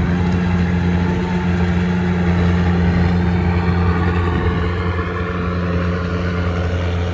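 Rice combine harvester engine running steadily at working speed: a constant low drone with a mechanical rattle over it.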